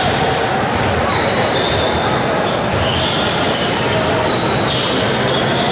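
Basketball game on a wooden gym court: a ball bouncing and several short, high sneaker squeaks, over the steady echoing noise of the hall.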